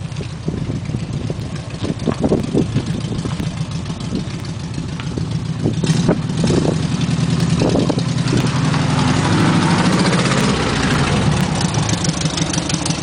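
Vehicle engine running and pulling, louder from about halfway through, as an old VW Bay window camper van is towed in on a rope.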